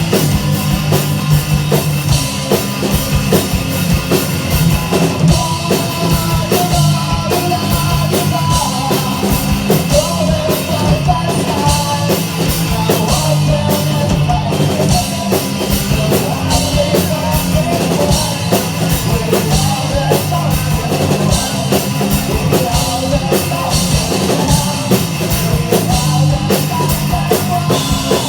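Loud rock music with a dense, fast drum beat and guitars, and a melodic line over it.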